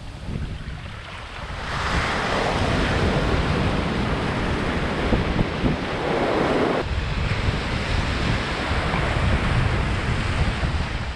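Shallow breaking surf washing around the skiff as it is pushed out through the white water; the rush of water gets louder about two seconds in and eases a little past the middle. Wind buffets the microphone.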